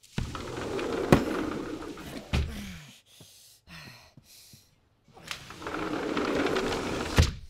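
Cloth rustling against a couch with sharp thumps as an injured man is hauled up off it, twice, with short falling groans between.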